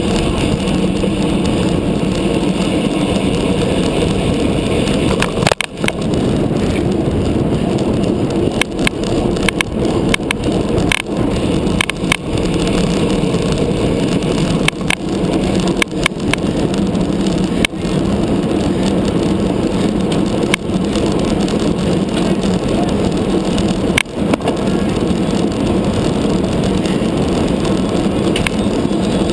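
Steady rush of wind over the microphone of a camera on a racing road bike's handlebars at speed, mixed with tyre noise on the asphalt. Sharp clicks or knocks come through about ten times.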